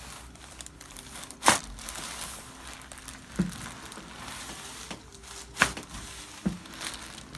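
Joints cracking during a chiropractic adjustment: two sharp cracks about four seconds apart, with fainter pops between them.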